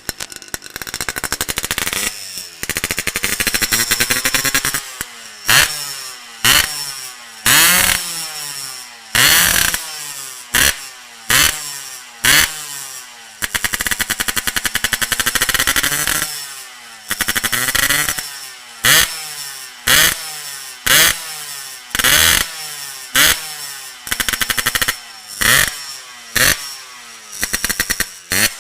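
Yamaha RX-King two-stroke single revved through an aftermarket Boban C39 exhaust: a held rising rev for the first few seconds, then about twenty short throttle blips roughly once a second, each dropping back toward idle.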